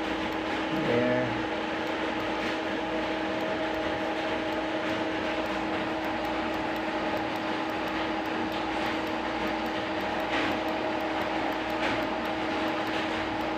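Steady mechanical drone with a constant hum and a few faint ticks.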